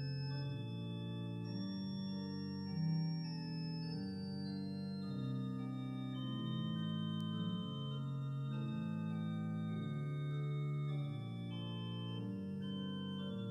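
Background organ music: slow held chords that move to new notes about once a second.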